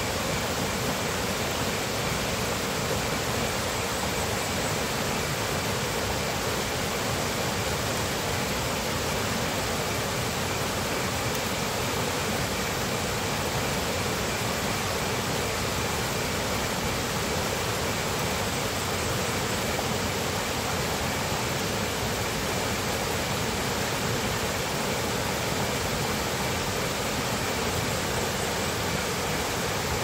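Rocky forest stream rushing steadily over stones, a constant, even water noise.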